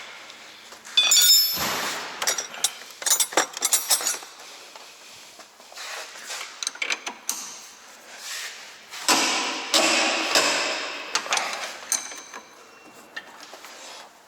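Metal clinks and knocks from tools and the front stabilizer link being worked on under the car, with a ringing metallic clink about a second in and a noisier stretch of rubbing and scraping about nine to eleven seconds in.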